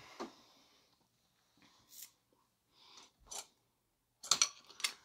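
Tools being handled in a tool bag: a few faint knocks and rustles, then near the end a quick cluster of sharper clicks and rattles as a long flathead screwdriver is drawn out of its pocket.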